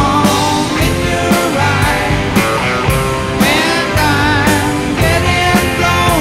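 Rock song playing, a singing voice over a steady drum beat.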